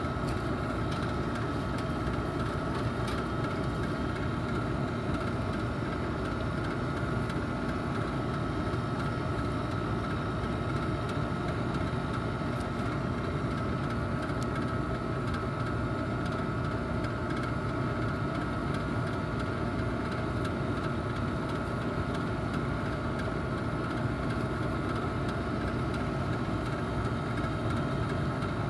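A neighbouring packaged air-conditioning unit running: a steady mechanical drone with a constant hum that does not change.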